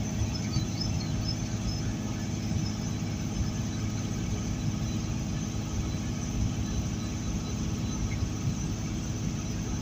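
Steady engine drone and road noise inside the cab of a heavily loaded semi truck at highway speed on a wet road.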